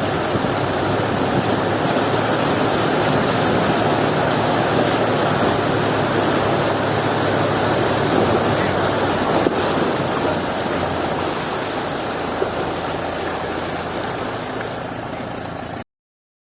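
A steady rushing noise with a faint low hum under it, cutting off suddenly near the end.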